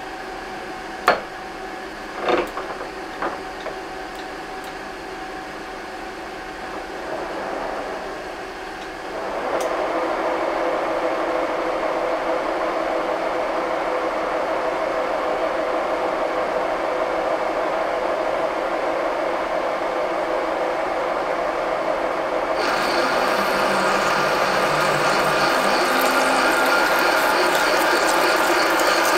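A few clicks and a clunk as the manual lathe's levers are set, then the lathe spindle starts about nine seconds in and runs with a steady whine. About twenty-two seconds in a parting tool starts cutting into the 50 mm Ovako 280 steel bar, and the sound grows louder and brighter.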